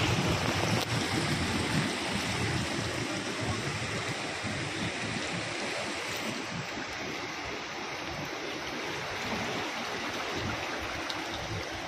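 Floodwater running steadily along a flooded street, an even rush of water.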